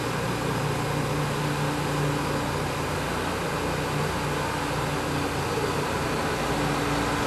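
Steady rushing background noise with a low hum under it.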